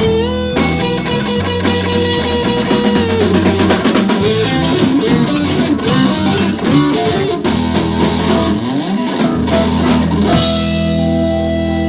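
Live blues band music: guitar playing quick lead lines over bass and drum kit, then a chord held and ringing from about ten seconds in.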